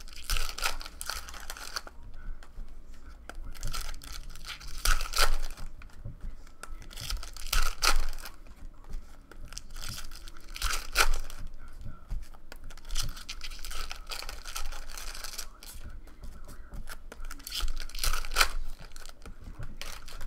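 Foil trading-card pack wrappers being torn open and crinkled, one pack after another, in short rips a few seconds apart.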